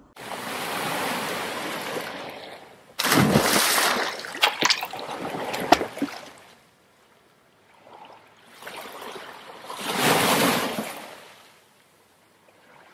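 Water splash and rush sound effects. A swell of rushing water, then a sudden loud splash with sharp drip-like clicks a few seconds in, and another rushing swell later on.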